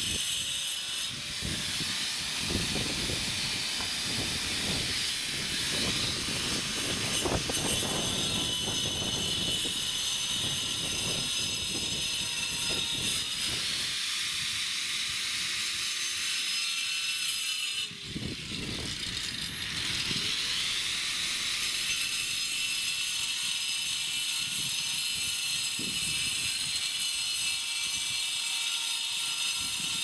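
Angle grinder with a cutting disc slicing through a hollow ceramic brick: a steady high whine over gritty grinding as each brick is trimmed to size. About two-thirds of the way through the whine briefly falls and rises again.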